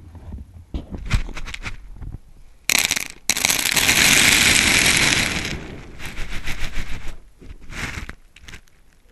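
Scratch grains pouring and rattling over the camera inside a scoop: scattered ticks of grain, then a loud rush of pouring grain from about three seconds in, lasting about three seconds and tapering off, then more scattered rattles.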